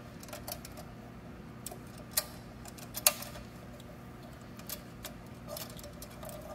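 Electrical wires being fed into a steel electrical box, light clicks and taps of the wires and hands against the metal, with two sharper clicks about two and three seconds in, over a steady low hum.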